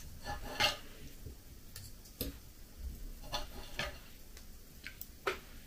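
Knife and fork clicking and scraping against a plate while cutting meat, in scattered light taps.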